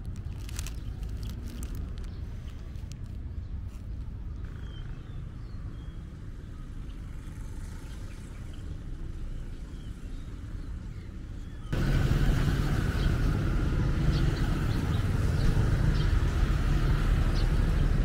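Street ambience dominated by a steady low rumble of traffic, with scattered small ticks. About twelve seconds in it jumps abruptly louder.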